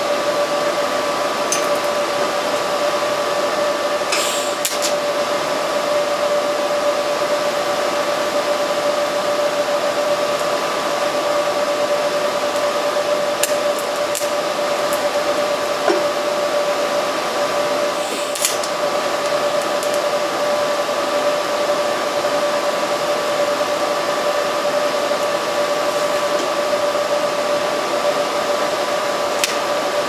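Electric welding arc running continuously: a steady hiss with a constant high hum, and a few faint clicks.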